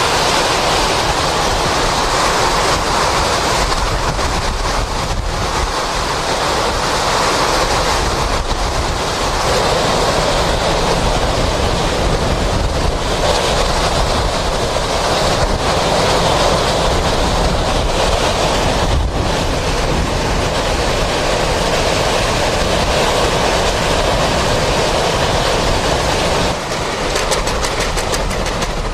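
Loud hurricane-force wind of Hurricane Wilma blowing in a steady, dense rush, with gusts buffeting the microphone. It dips briefly about two seconds before the end.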